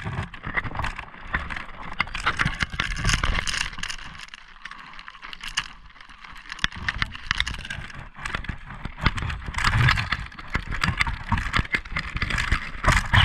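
Wind buffeting and irregular scraping and knocking on a GoPro sealed in its waterproof housing, heard from inside the housing as it dangles and swings on a fishing line. The noise is full of short clicks and rubs and eases off for a few seconds in the middle.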